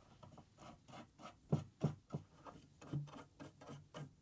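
Faint clicks, light knocks and rubbing as guide blocks and their knobs are handled and fastened on a router carriage's metal side brackets, with a few louder knocks about one and a half to two seconds in.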